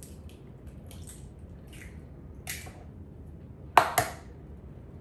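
Eggshell crackling faintly as fingers pull a cracked egg apart, then an egg knocked twice, sharply and loudly, on the rim of a glass mixing bowl about four seconds in.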